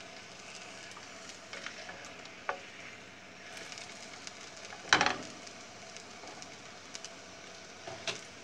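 A sauce-dipped corn tortilla sizzling steadily in shallow oil in a nonstick frying pan. A few sharp clicks come from metal tongs handling it, the loudest a clack about halfway through.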